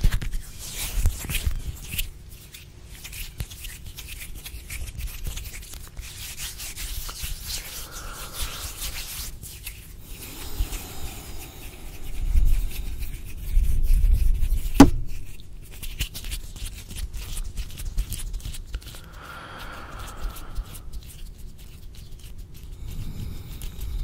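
Close-miked ASMR hand sounds: palms and fingers rubbing together and crackling right at the microphone, a dense run of fine crisp crackles and clicks. A low rumble of hand movement swells about halfway through, and one sharp finger click is the loudest moment.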